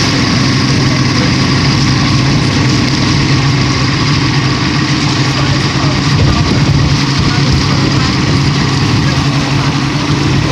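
Yamaha V6 200 outboard motor running steadily under way, its even engine drone mixed with a constant rush of wind and water.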